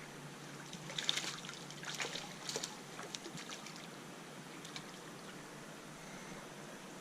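Creek water trickling and flowing steadily, with a short run of brief sharp noises between about one and three and a half seconds in.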